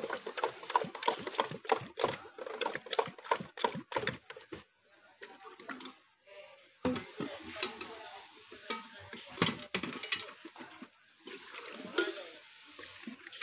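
Plastic hand whisk churning juice in a steel pot, clattering rhythmically against the metal about three times a second for the first four seconds. After a short pause, juice is poured from a tall steel jug into the pot, splashing and sloshing.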